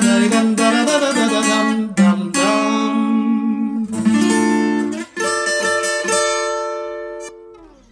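Acoustic guitar playing the closing bars of a song: quick strumming, then a few chords struck and left to ring, the last one fading out.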